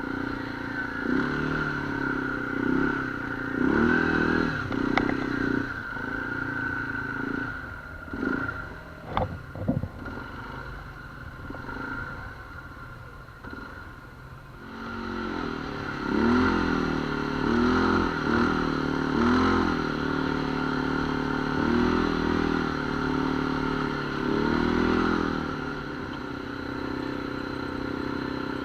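ATV engine running on a trail, the throttle opening and closing over and over, with a quieter lull about halfway through. A few sharp knocks and rattles come just before the lull.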